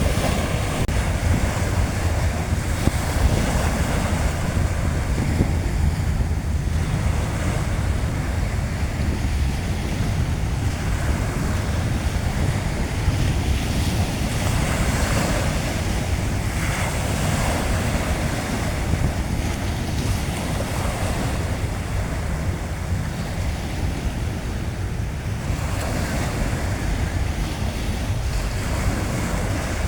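Sea waves washing onto a beach in slow swells, with wind buffeting the microphone in a steady low rumble.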